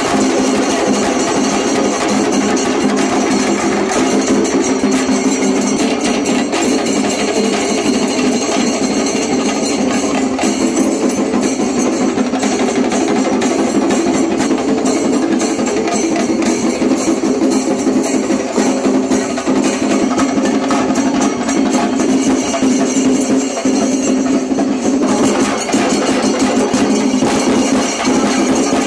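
Kerala percussion ensemble of chenda drums beaten with sticks and ilathalam hand cymbals, playing loudly and without a break in a dense, fast beat.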